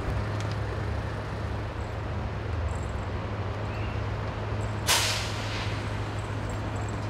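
Steady low engine hum over street noise. About five seconds in comes a short, sharp hiss of released air, which fades within a second.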